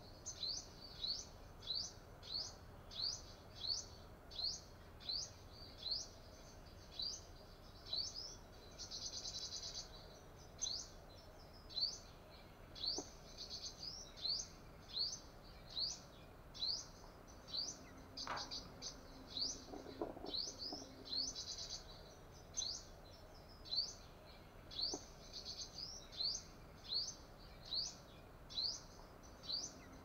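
Sunbird calling: a long series of short, high, rising chirps, one or two a second, broken now and then by brief buzzy trills.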